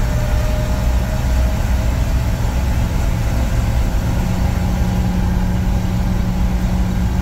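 1969 Chevrolet C50 fire truck's engine running steadily under way in third gear, high range of the two-speed rear axle, heard from inside the cab.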